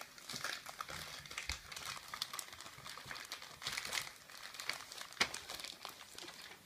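Gift wrapping paper crinkling and rustling as it is handled, in irregular crackles, with a sharp click a little after five seconds in.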